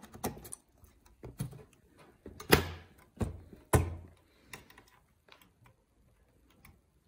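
Irregular clicks and knocks of a bare graphics card board and its detached cooler being handled and fitted on an open motherboard, with two louder knocks about two and a half and nearly four seconds in. The knocking thins out near the end.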